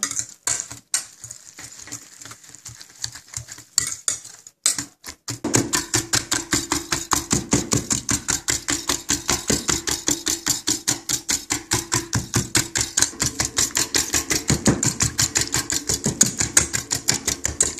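Wire whisk beating eggs with grated cheese and chopped onion in a stainless steel bowl, the wires clicking and scraping against the metal. A few loose strokes at first, then from about five seconds in a fast, even whisking rhythm.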